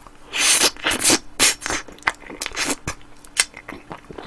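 Eating sounds close to the microphone: a spoonful of soft, melting ice cream cake taken off a small plastic spoon. It comes as a run of irregular short smacks and scrapes with a few sharp clicks.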